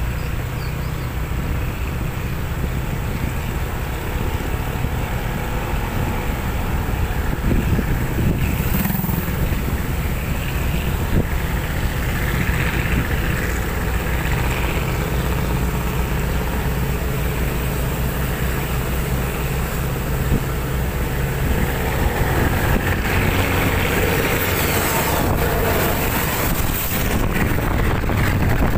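Heavy diesel trucks running on the road: a steady low engine rumble with tyre and road noise that swells as vehicles pass, plus some wind on the microphone.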